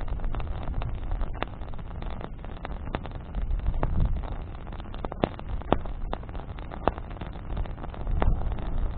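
Bonfire of burning wood crackling, with irregular sharp pops, a few louder ones in the middle, over a low rumble of wind on the microphone.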